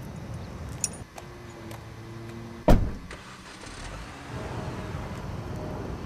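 A car door slams shut with one loud thud near the middle. Afterwards the car's engine runs.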